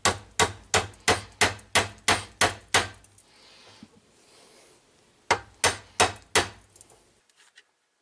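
Hammer blows driving a 5 mm keyway broach through a front-sprocket adapter held on a mandrel in a vise. First a quick run of about nine sharp strikes, about three a second, each with a short ring. After a pause of about two seconds come four more strikes.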